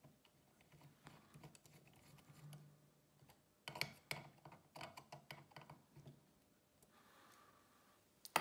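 Faint, irregular small clicks and light metallic taps of steel tweezers and a small screw against the brass clock movement as the bell support is fixed with its screw, with a cluster of sharper clicks about four seconds in.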